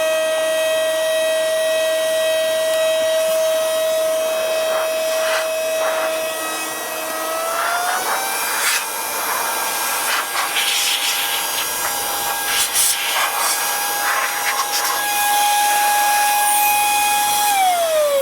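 DSPIAE handheld cordless vacuum running as a blower, a steady electric-motor whine over rushing air. About seven seconds in the whine steps up in pitch as it goes to its higher speed, with scattered light rattles while it blows dust off model parts. Near the end it is switched off and the whine starts to fall as the motor spins down.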